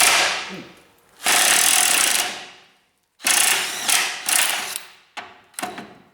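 Pneumatic impact wrench hammering in repeated trigger bursts of about a second each, with a few short blips near the end, on a rusted shock-absorber nut that has not been soaked in penetrating oil.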